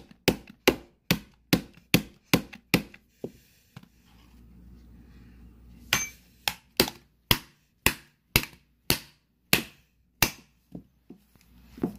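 Repeated sharp blows of a metal rod against the dented aluminium back of an iPhone 7, smashing at its camera. They come in two quick runs of about two to three blows a second, with a pause of a few seconds between, and a couple of lighter knocks near the end.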